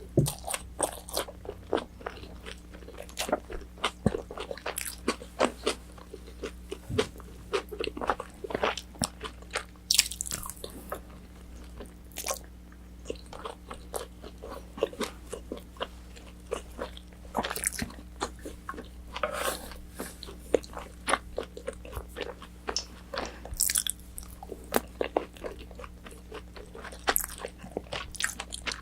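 Close-miked eating of orange chicken: biting into and chewing the crispy battered pieces, a steady run of crunches and mouth clicks several times a second.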